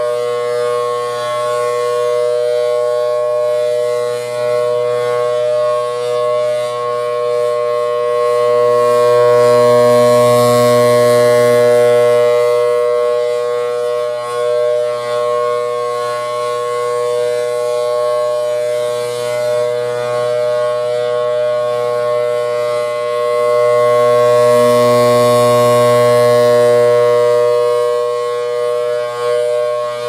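Mid-to-late-1950s Federal Signal Thunderbolt 1000T (three-phase 1000AT) siren with a 4/5 chopper, held at full speed as a steady two-note tone. It swells louder twice, about fifteen seconds apart, as the rotating horn sweeps past.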